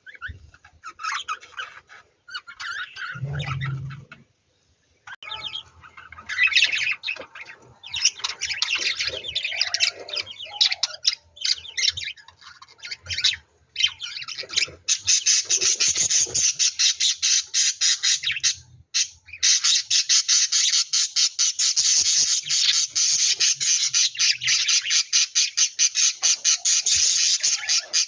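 Lovebirds chirping and squawking: scattered calls at first, then from about halfway a dense, rapid, continuous chatter.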